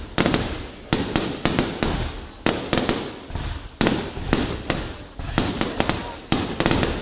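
Fireworks display: aerial shells bursting in quick succession, about two to three sharp bangs a second, each trailing off into a rolling rumble.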